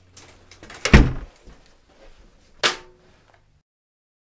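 A heavy thump about a second in, followed by a sharper knock near three seconds, in a small room; then the sound cuts out completely.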